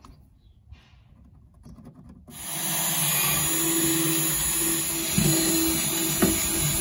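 Black+Decker cordless drill starting suddenly about two seconds in and running steadily at one pitch while drilling the marked screw holes in the black plastic speaker support.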